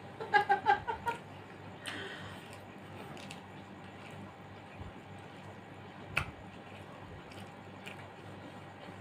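Eating sounds from a man working through roast chicken and instant noodles. A quick run of five short, high vocal sounds comes about half a second in, then a breathy puff of air, then quiet mouth noises with one sharp click about six seconds in.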